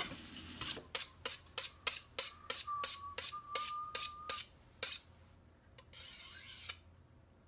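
A kitchen knife being drawn quickly along a steel honing rod: a run of about fourteen short metallic scrapes, about three a second, with a faint ringing from the steel under the middle strokes, then one longer scrape about six seconds in.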